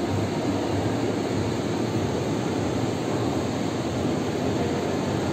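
Steady, even background noise inside a shopping mall, with no distinct sounds standing out.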